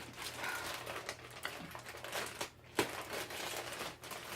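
Packaging crinkling and rustling as a mailed package is handled, with a few sharper clicks and taps, one louder near the middle.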